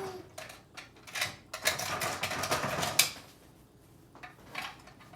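Clatter of small hard objects being handled: a quick run of clicks and knocks over the first three seconds, then only a couple of faint knocks.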